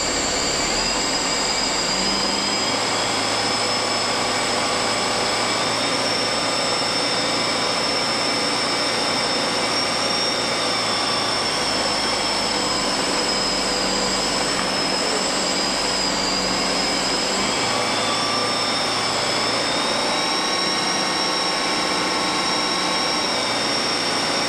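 Cockpit noise of a Bristell light aircraft on final approach: the piston engine and propeller running steadily, mixed with airflow over the cabin. The engine note shifts slightly about two-thirds of the way through.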